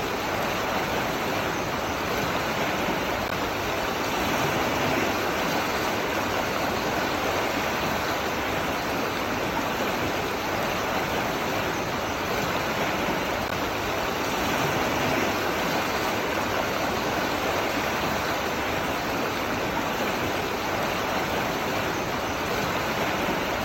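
Flowing water rushing steadily, a continuous even wash like a stream or small waterfall.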